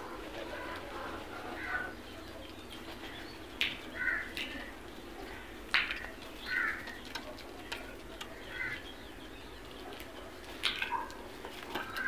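A flock of house crows giving short, scattered calls, one every second or so with a few close pairs, over a faint steady background noise.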